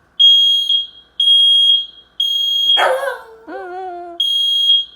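Smoke alarm sounding its fire-alarm signal: three loud, high-pitched beeps about a second apart, a pause, then the beeps start again. In the pause a Shiba Inu gives a short wavering whine.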